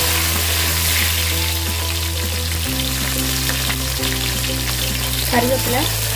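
Hot oil sizzling steadily as sliced garlic and green chillies fry in a pot.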